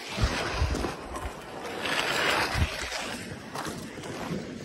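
A sled dragged over snow on a tow rope, a rough rushing noise that swells about two seconds in, with a few dull footfalls of someone walking in snow.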